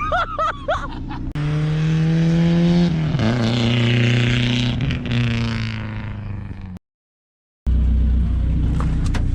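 BMW engine held at high revs while sliding on an icy road, its pitch dropping about three seconds in, with a hiss over it. After a brief silent break it comes back as a low, steady engine rumble.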